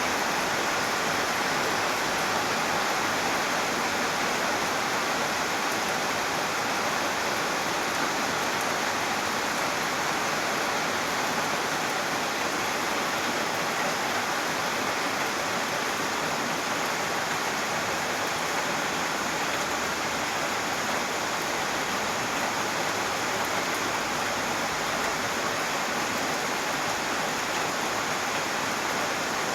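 Steady rain falling, a constant even hiss without distinct drops or pauses.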